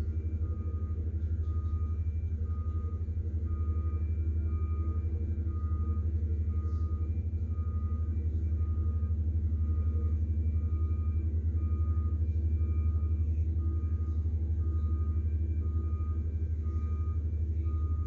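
Diesel engine of a double-drum asphalt roller running with a steady low rumble, while a backup alarm beeps evenly, a little more than once a second.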